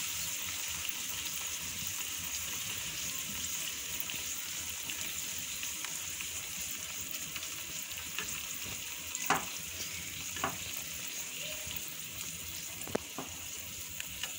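Beaten egg and chicken mixture poured over potato slices sizzling steadily in oil in a frying pan, while a wooden spatula spreads it, with a few short taps of the spatula against the pan in the second half.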